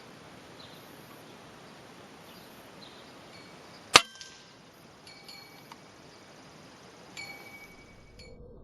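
A single sharp rifle shot about four seconds in, short and clipped, with no long echo.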